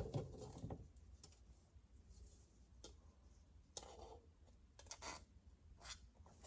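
Near silence with a few faint, scattered clicks and taps: a plastic smoke alarm mounting base being handled and tried against the ceiling for fit.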